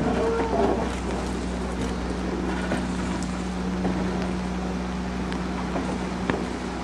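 Stainless-steel electric commuter train rolling slowly past, with a steady low hum and a sharp click near the end.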